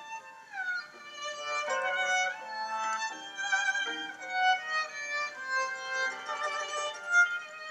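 Violin playing a klezmer melody, with slides between notes and vibrato on held notes.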